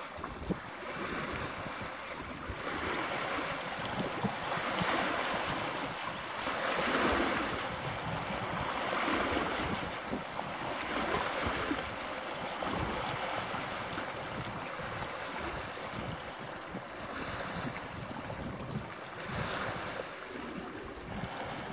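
Wind gusting on the microphone over the wash of sea water, the noise swelling and easing every few seconds.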